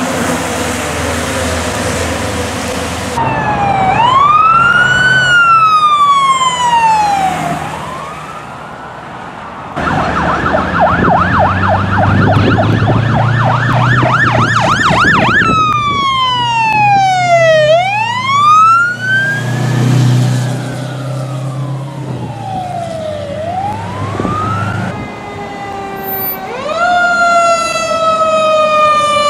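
Fire truck sirens from several trucks in turn. A siren winds down over rain hiss on a wet road, then long wails rise and fall over a few seconds each, with a fast yelp and a low rumble in the middle. A new wail starts near the end.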